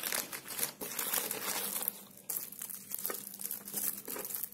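A plastic courier mailer bag crinkling and rustling in the hands as it is pulled open and a shrink-wrapped tin box is drawn out, with a brief lull about two seconds in.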